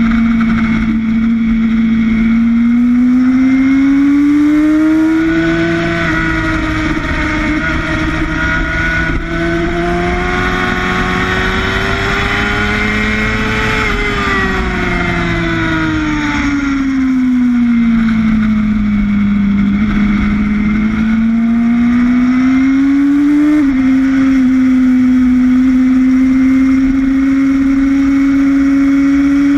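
Sportbike engine at track speed, recorded onboard, its pitch rising and falling slowly with the throttle through corners and straights and stepping down a little about three-quarters through. Heavy wind rush runs under it.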